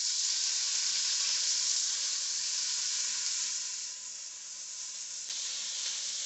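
Seasoned chicken breast sizzling as it fries in hot avocado oil in a skillet: a steady hiss that eases slightly about four seconds in, with one short click a little after five seconds.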